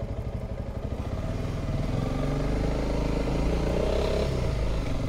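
Honda CRF300L Rally's single-cylinder engine thumping at low revs, then pulling away and growing louder as the bike picks up speed.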